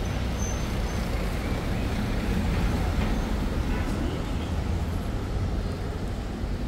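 City street traffic: a steady low rumble of passing cars and buses, with people's voices mixed in.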